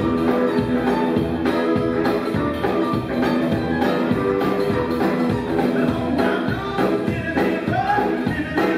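Live rock and roll band playing: electric guitar over a steady beat, with a man's singing voice coming in near the end.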